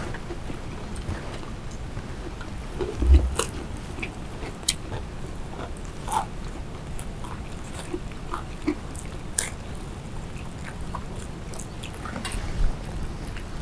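Close-up eating sounds: chewing and crunching with scattered small clicks and crackles as fried food is eaten by hand. There is a dull thump about three seconds in.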